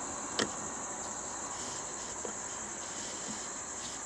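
Steady, high-pitched drone of insects from the roadside vegetation, with one sharp click about half a second in.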